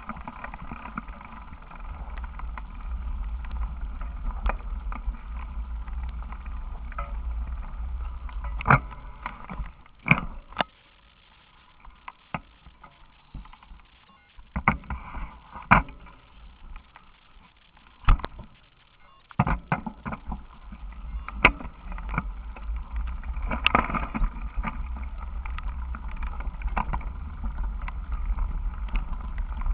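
Wind buffeting the microphone of a camera mounted on the handlebars of a moving bicycle, a steady low rumble, with scattered sharp knocks and rattles from the mount jolting over the road. The rumble drops away for several seconds in the middle, leaving mostly the knocks, then comes back.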